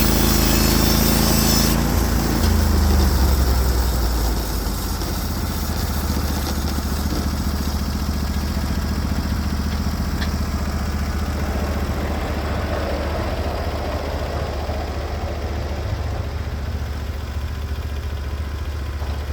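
Norwood HD36v2 bandsaw mill running: the band's high cutting hiss stops about two seconds in, and the engine's pitch drops as it settles into a steady idle.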